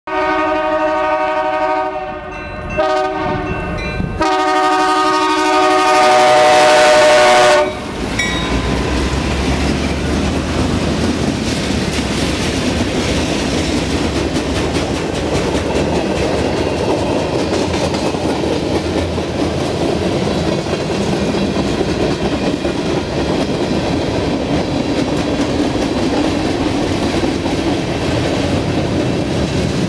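A BNSF diesel freight train's air horn sounds in several blasts as the train approaches, the last a long, loud blast that ends about eight seconds in. The locomotive and its freight cars then roll past in a steady rumble, with the wheels clicking over the rail joints.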